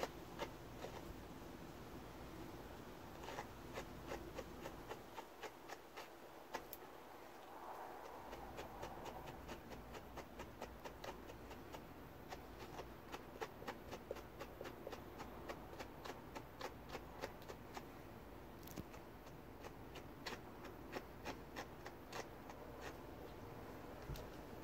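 A slicker brush raked through an Angora rabbit's wool in short, quick, scratchy strokes, about two or three a second, working out tangles.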